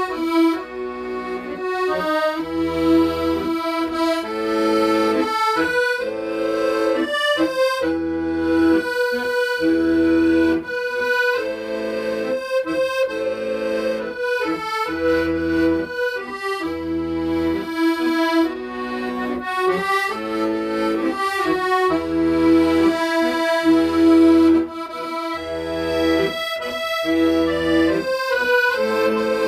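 Accordion playing a slow, plaintive melody in the right hand over a steady left-hand accompaniment of low bass notes alternating with chords.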